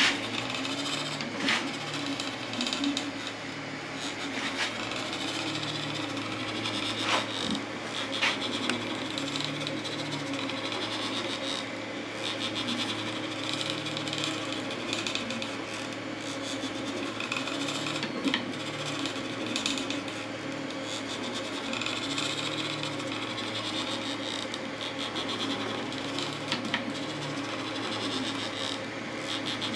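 Desktop FDM 3D printer printing: its stepper motors whir in short runs whose pitch changes with each move of the head and bed, over the steady hum of its fans, with the part-cooling fan at full speed. A few light ticks come through now and then.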